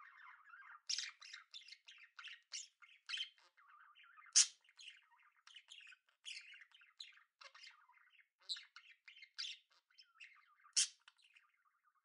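Budgerigars chattering: a busy run of short, scratchy chirps, with two louder, sharper calls, one about four seconds in and one near the end.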